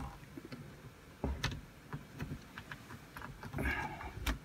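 Small plastic clicks and taps from a fold-down 12 V TV and its housing as it is forced up against a stiff retaining clip, with a duller knock about a second in and another near the end.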